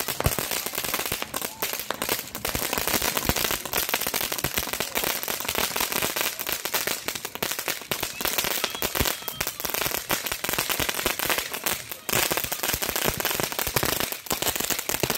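Crackling fountain firework spraying sparks: a dense, continuous run of rapid pops and crackles, with a brief lull about twelve seconds in.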